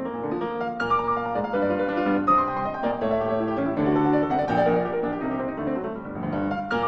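Background piano music, a steady run of melodic notes.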